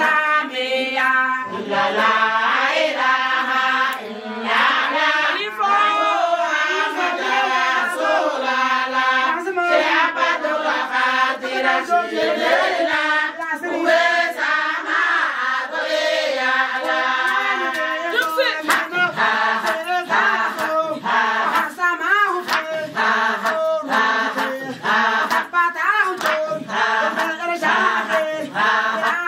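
A group of women singing together in a chant-like unison song. In the second half, regular sharp hand-claps keep the beat.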